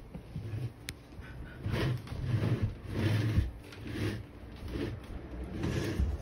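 Plastic toy dump truck rolling over a hardwood floor, its wheels giving uneven low rumbles, with a sharp click about a second in.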